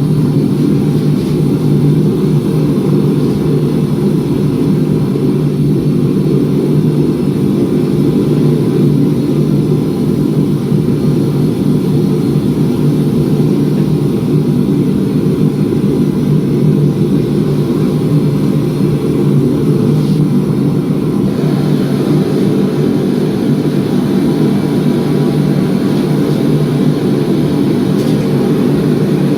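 Steady, loud drone of running shop equipment with a deep hum, unchanging in level; the higher hiss shifts slightly about two-thirds of the way through.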